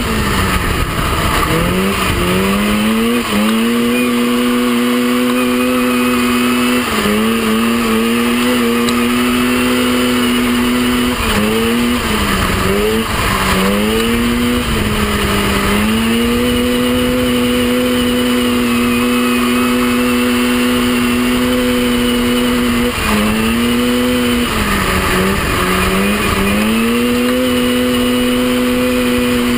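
Mini off-road racing buggy's engine running hard at high, steady revs. Its pitch dips and climbs back about eight times as the throttle is eased and reapplied through the bends, heard from on board over a constant rush of noise.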